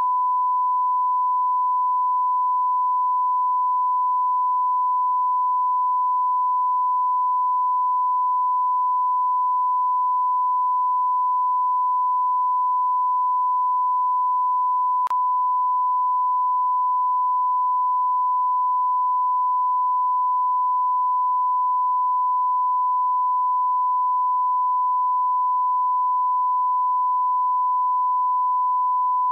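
Steady 1 kHz sine-wave test tone, the reference line-up tone that goes with colour bars. It holds one pitch and one level without a break, and there is one faint click about halfway through.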